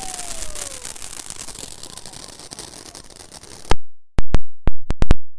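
Ground-launched consumer firework hissing and spraying sparks, with a faint falling whistle in the first second. Near the end, a rapid string of six or seven very loud sharp bangs over about a second and a half as its shots go off.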